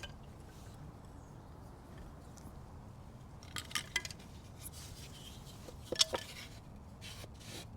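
Metal bonsai tools clicking and snipping while working a juniper: a cluster of sharp clicks about halfway through, a louder double click about three-quarters through, and fainter scratchy rustling near the end.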